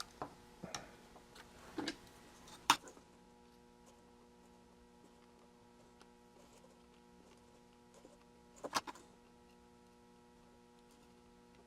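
A few small clicks and taps of hand tools and parts being handled at an electronics workbench during kit soldering, the sharpest about three seconds in and a short cluster near the end, over a faint steady electrical hum.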